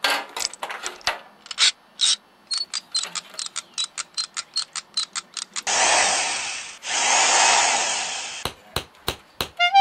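Nylon zip tie being ratcheted tight around a throttle cable: a run of sharp clicks, about five a second, then two longer unbroken zips as the tail is pulled through fast, and a few more single clicks near the end.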